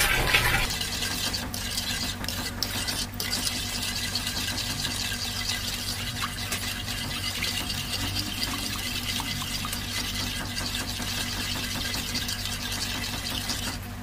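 Wooden spoon stirring and scraping a hot mixture of melted margarine, coconut milk and sugar in an aluminium wok, the mixture simmering with a steady crackling hiss as the sugar melts. A few louder scrapes of the spoon come in the first few seconds.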